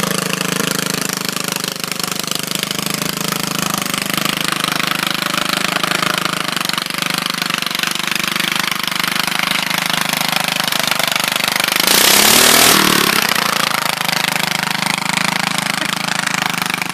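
Riding lawn mower's straight-piped engine, with no muffler, running loud and steady. About twelve seconds in there is a brief, louder rush of noise as the engine's pitch rises.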